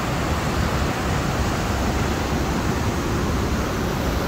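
Heavy ocean surf breaking and foaming over a rocky shore: a steady, even roar with a strong low rumble.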